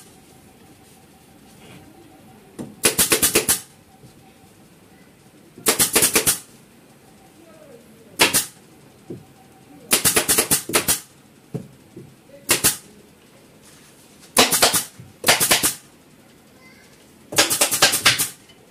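Pneumatic upholstery staple gun firing staples through fabric into a wooden sofa frame, in about eight quick bursts of several shots each, separated by pauses of a second or two.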